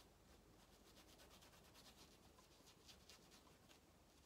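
Faint, scratchy rubbing of a paintbrush working oil paint onto canvas, in short runs of quick strokes.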